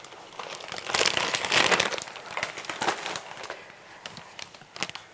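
Crinkling of a plastic cracker sleeve as crackers are pulled out, loudest for about a second near the start, then quieter rustling with a few light taps of crackers set down on a wooden board.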